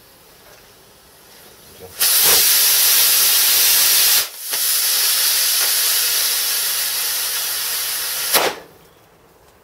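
A lit fuse fizzes faintly. About two seconds in, a small rocket motor ignites into a loud, steady rushing hiss of thrust. The hiss cuts out for a moment about four seconds in, resumes, and ends with a short louder burst about eight and a half seconds in as the motor burns out.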